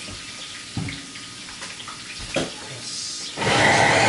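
A couple of light knocks, then an electric kitchen blender switched on about three seconds in, running loud and steady as it purées a raw chilli and tomato relish.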